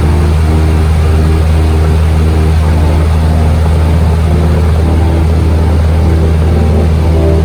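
Steady drone of a single-engine Cessna's piston engine and propeller at cruise power, with background music whose notes change about twice a second over it.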